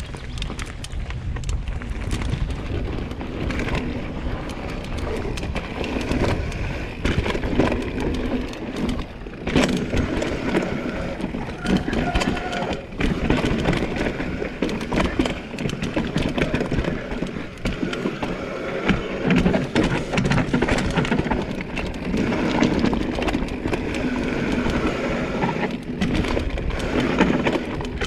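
Propain Tyee enduro mountain bike riding down a dry dirt forest trail: tyres rolling and crunching over the hard, dusty ground and roots, with the bike rattling and knocking over bumps.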